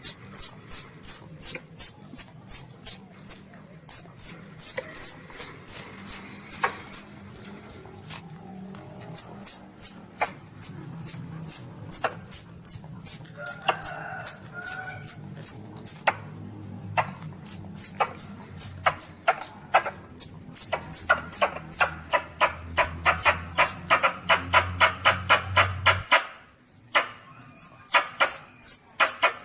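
Asian palm civet kitten calls: runs of short, high-pitched squeaks, about three a second, broken by brief pauses. The calls pick up into a faster, denser series a little past two-thirds of the way through. This is the kind of recorded call used as a lure for hunting civets.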